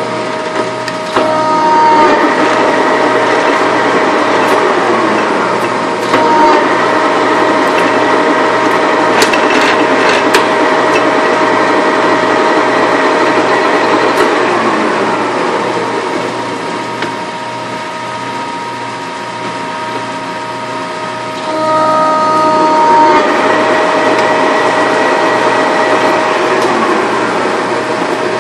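20-inch Lodge & Shipley engine lathe running under power, a steady whine of several tones over a dense mechanical rattle. It gets quieter for a few seconds past the middle, then comes back up louder, with a few sharp clicks a little before the middle.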